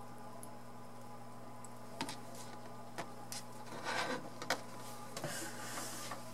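Light clicks and a brief rustle as tweezers and a small model locomotive chassis are handled and set down on a cutting mat, over a steady low hum.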